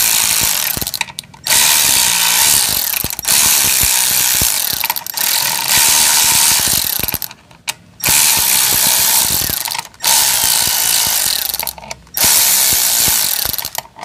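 Cordless electric ratchet running in bursts of a few seconds with short pauses between, backing out the spring-loaded bolts that hold a motorcycle clutch pressure plate. The bolts are loosened a little at a time, one after another, to release the spring pressure evenly.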